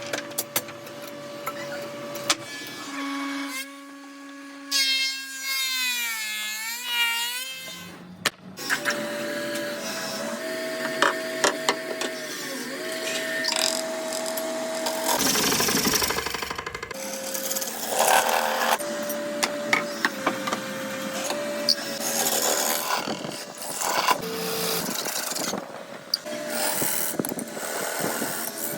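Power tools working wood: a steady motor whine that stops and restarts, with frequent clicks and knocks. A few seconds in, a pitched tone wavers up and down, and about halfway there is a short burst of louder noise.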